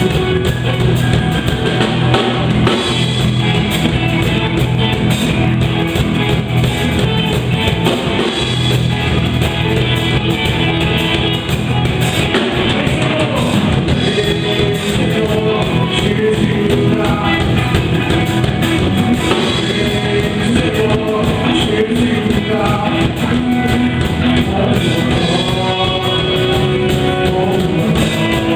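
Live gospel worship band playing an upbeat song at rehearsal, with drum kit, electric guitar and singing.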